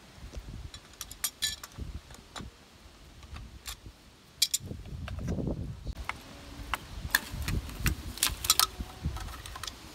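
Pliers and metal pipe fittings clinking and clicking as a submersible well pump's fittings are worked apart by hand: scattered sharp metallic clinks, with a stretch of dull handling noise around the middle.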